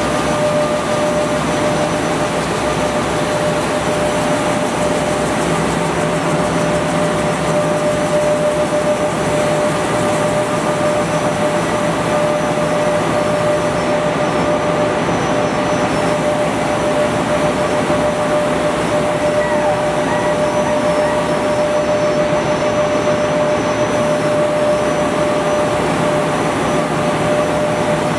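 A pull-up diaper production machine running: a loud, steady mechanical hum and hiss with a constant whine.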